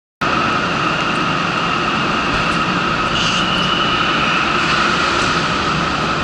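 Loud, steady machinery drone with a constant high hum, cutting in abruptly a moment in.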